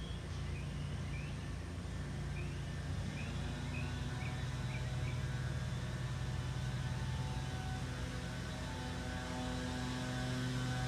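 An engine drones steadily, getting a little louder toward the end. A small bird gives a quick series of short chirps through the first half.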